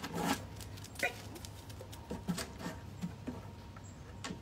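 A German Shepherd jumping onto a raised pallet platform: a loud thump as it lands at the start, then scattered lighter knocks and taps as it moves about on the boards.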